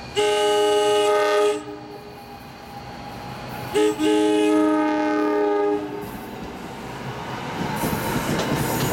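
NJ Transit Arrow III electric multiple-unit train sounding its horn for a grade crossing: a long chord blast, a short toot, then a second long blast. After the horn, the rumble and wheel noise of the train grow louder as it passes close by.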